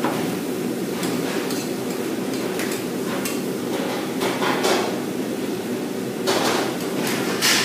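A metal spoon knocking and scraping against a metal pan several times at irregular intervals, the loudest near the end, as food is scooped out onto a plate. A steady low kitchen rumble runs underneath.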